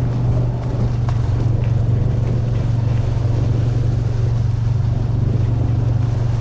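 Kawasaki Mule utility vehicle's engine running at a steady low drone while driving along a trail.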